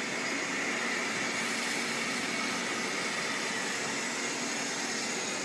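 CHMER wire EDM machine running, a steady even hiss and hum with no breaks.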